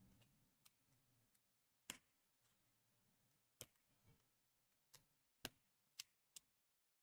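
Near silence broken by about eight faint, sharp, irregular clicks and taps of small model-kit parts being peeled off and handled on the workbench.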